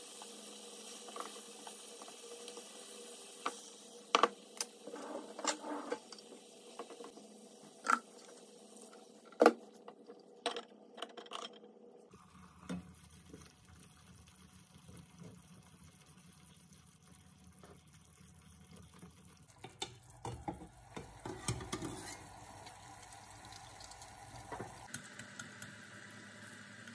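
Chopsticks clicking against a frying pan as meatballs and mushrooms sizzle in tomato sauce. About twelve seconds in the sizzle gives way to quieter simmering after water is added, and a stainless steel lid clinks onto the pan. Near the end comes the light crackle of a boiled egg's shell being peeled.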